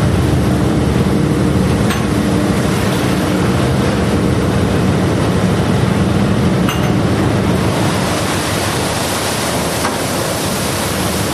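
Fishing vessel's engine and deck machinery running steadily with a low hum while a longline is being set, with two sharp clicks. From about eight seconds in, a hissing rush of sea spray is added.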